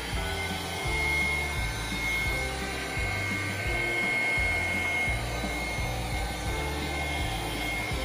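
Black & Decker cordless handheld vacuum running steadily, with a high motor whine over a rush of air, under background music with a bass line.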